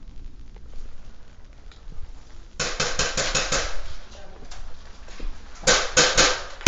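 Sharp clicks and cracks of airsoft fire echoing in a bare brick room: a few from about two and a half seconds in, and a quicker run of them near the end.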